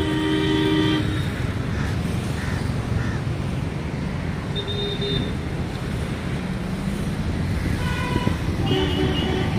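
Steady road-traffic rumble with vehicle horns honking: one horn for about the first second, a short toot about five seconds in, and more horns near the end.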